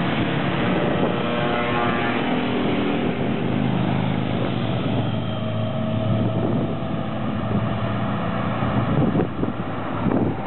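A group of motorcycles riding past one after another, their engine notes shifting in pitch as each goes by, with wind buffeting the microphone near the end.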